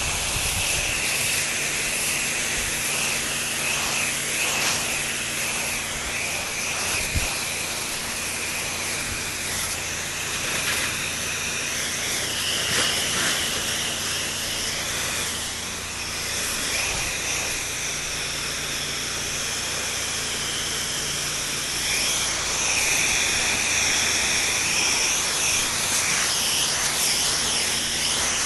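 Pressure washer spraying a steady hissing jet of water, over the low steady hum of the machine's engine and pump.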